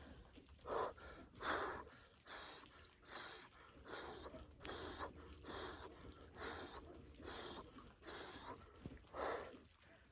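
A man breathing fast and hard through the cold of an ice bath, short sharp breaths about one a second, the body's cold-shock response to the icy water.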